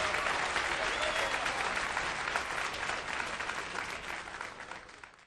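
An audience applauding, fading out over the last second or so and then cutting off.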